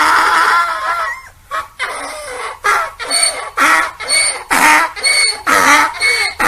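Donkey braying: a long drawn-out call that fades about a second in, then breaks into a run of rhythmic hee-haw pulses, about two a second.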